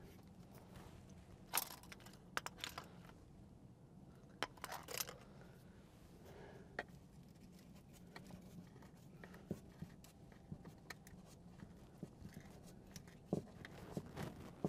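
Hands refitting the air intake hose on a diesel bunk heater: scattered faint clicks, knocks and rustles, the sharpest about one and a half, five and thirteen seconds in.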